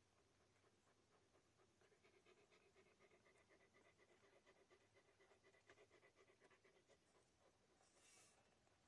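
Near silence, with faint rapid soft clicks of newborn puppies suckling at their mother dog, and a faint steady hum in the middle seconds.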